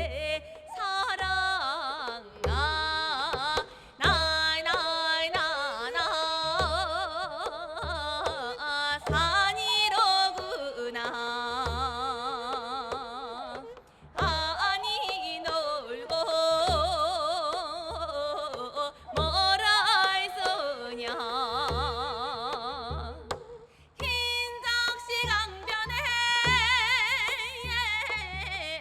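Korean traditional singing: a solo voice sings long, wavering phrases with heavy vibrato, pausing briefly twice, over regular low drum strokes.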